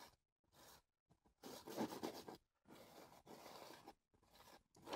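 Palette knife scraping oil paint across a stretched canvas in several faint strokes, the loudest a little under two seconds in.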